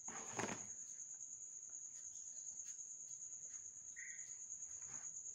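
A cricket chirring in a steady, high, unbroken trill. A brief scuffing noise comes about half a second in.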